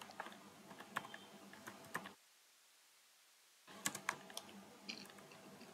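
Faint computer keyboard typing: scattered individual key clicks, with the sound cutting out completely for about a second and a half in the middle.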